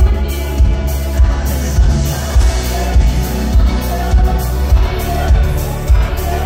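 Live pop band playing loudly through a concert PA, with a heavy bass line and a steady drum beat of about three beats every two seconds. A female lead vocal sings over it.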